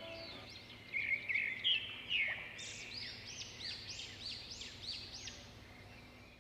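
Small birds calling: a burst of chattering calls, then a regular series of short, high, arched chirps about two a second.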